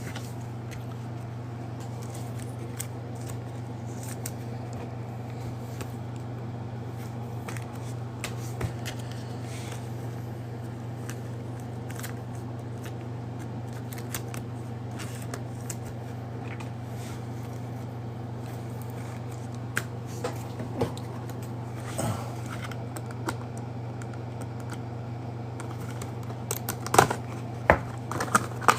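Trading cards and their packaging being handled: scattered light clicks, taps and rustles over a steady low hum, with a cluster of sharper clicks near the end.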